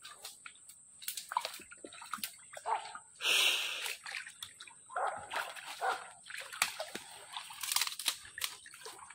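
Footsteps sloshing and splashing irregularly through mangrove swamp mud and shallow water, with one louder splash a little over three seconds in.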